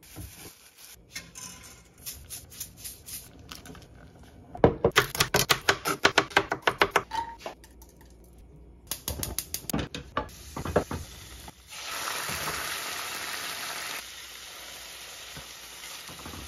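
Home kitchen cooking sounds: small handling clicks from mixing, then a fast run of sharp chopping strokes, like a knife on a cutting board. Steady sizzling of food frying in oil in a pan follows, loudest when it begins.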